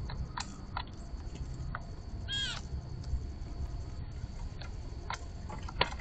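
Birds at a backyard feeder: a few short chirps, and a little over two seconds in one louder, harsh, downward-bending blue jay call, over a steady low rumble.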